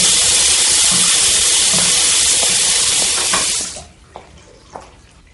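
Water running hard from a chrome mixer tap into a washbasin, cutting off suddenly about three and a half seconds in, followed by two faint drips.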